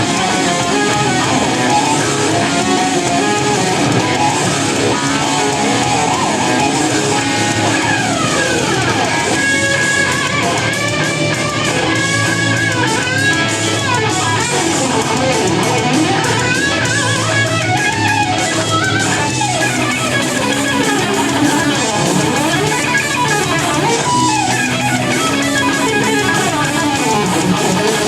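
Electric guitar playing lead lines over a full backing with bass, the melody full of pitch bends and slides.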